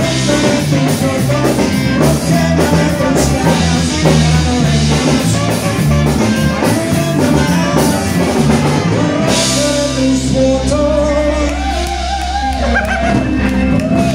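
Live band playing: trumpet, saxophone, electric guitar, bass and drum kit behind a male singer. About nine seconds in the steady beat drops away and the band holds long notes.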